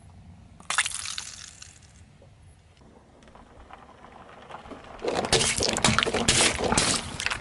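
About a second in, a bead-filled balloon cut with scissors bursts with a sudden pop, and its contents spill out with a brief rush. From about five seconds in, a car tyre rolls over sealed plastic pudding cups and crushes them, with crackling plastic and squirting pudding. The crushing is the loudest part.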